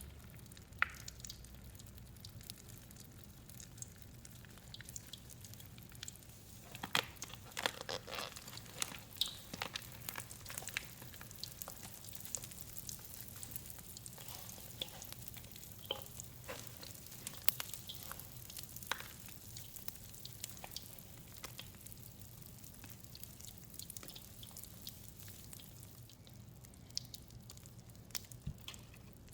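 Mr. Bubble Bath Crackles popping in wet, soapy gym chalk: scattered small sharp pops and crackles, thickest from about seven to eleven seconds in and thinning out toward the end.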